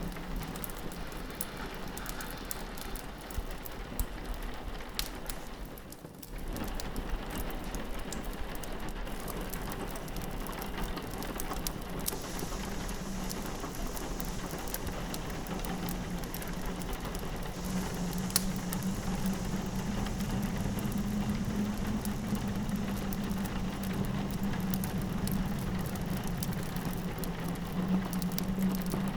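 Rain pattering against a window mixed with a crackling log fire: a steady hiss of rain with scattered sharp pops and snaps, over a low steady drone. The sound dips briefly about six seconds in and comes straight back.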